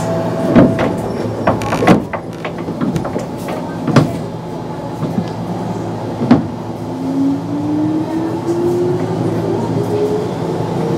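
Kintetsu 8600 series resistor-controlled electric train running, heard from inside the car: a steady rumble with sharp clacks of the wheels over rail joints. From about six seconds in, a traction-motor whine rises steadily in pitch as the train picks up speed.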